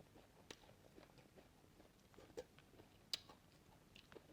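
Near silence with a few faint, scattered clicks and taps, the sharpest about three seconds in.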